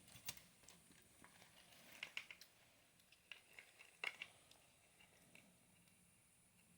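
Faint scattered clicks and light taps, with a cluster about two seconds in and a sharper click about four seconds in: a Dyson cordless vacuum and small parts being handled during a battery replacement.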